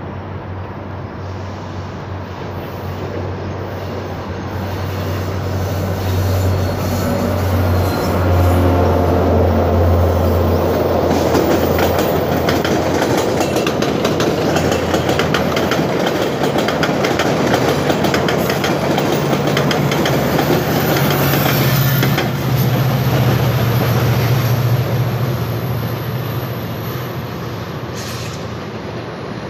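GO Transit and VIA Rail diesel passenger trains passing each other, their locomotive engines making a steady low drone. Wheels click rapidly over rail joints through the middle, when the sound is loudest, and a faint high wheel squeal slowly drops in pitch in the second half as the sound eases off.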